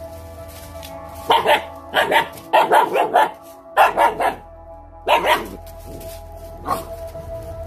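Seven-week-old Lycan Shepherd puppies squabbling, a run of short barks in quick clusters for about four seconds and one last bark near the end, over background music.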